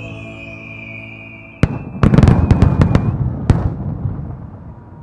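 The last chord of the accompanying music fading out, then aerial firework shells bursting: one sharp bang about a second and a half in, a rapid cluster of bangs and crackling over the next second, and a final bang about three and a half seconds in, with echo trailing off after.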